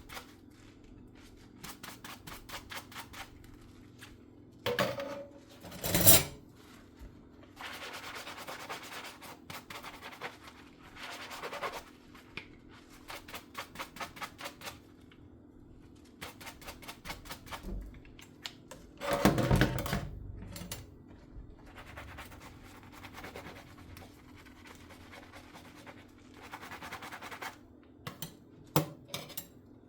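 Dishes being scrubbed by hand with a sponge at the sink: runs of quick rhythmic scrubbing strokes, several a second, with a steady low hum underneath. Two louder bursts of clatter or splashing stand out, about six seconds in and again about twenty seconds in.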